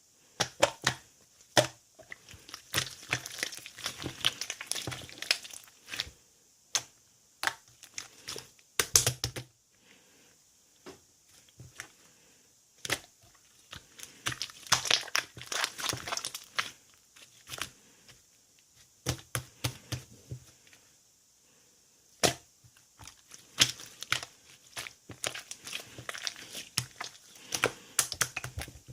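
Slime being squeezed, pressed and stretched by hand, giving clusters of crinkly crackling and sharp clicking pops a few seconds long, broken by short pauses.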